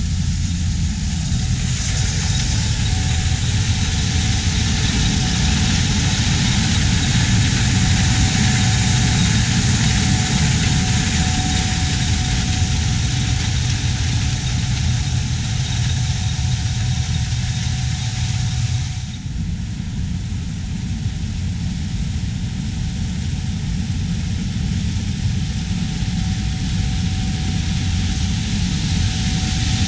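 Large diesel harvest machinery running steadily in a corn field: a low engine drone under a dense hiss of machine and crop noise. About two-thirds of the way through, the sound drops a little and turns duller.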